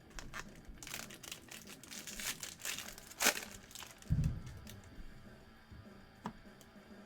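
Foil wrapper of a Bowman Baseball jumbo card pack crinkling and tearing open, with a sharp rip about three seconds in, then a dull thump just after.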